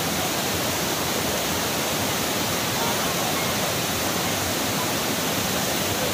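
Steady rush of a fast mountain river's whitewater rapids.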